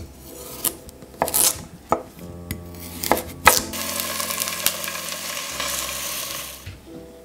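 A chef's knife chopping a carrot on a wooden board: several sharp knocks over the first three and a half seconds. Then carrot pieces go into hot oil in a stainless steel pan, which sizzles for about three seconds before dying away.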